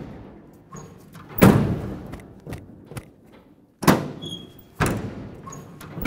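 Tailgate of a 1999–2006 Chevrolet Silverado being worked open and slammed shut to test its newly installed latch: three loud clunks, about a second and a half in, near four seconds and near five seconds, with a few lighter knocks between.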